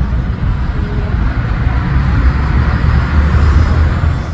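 Engine noise of a landing aircraft passing low overhead on final approach, a steady rushing drone that grows louder and then eases near the end.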